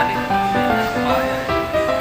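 Background music: a gentle melody of held notes stepping up and down.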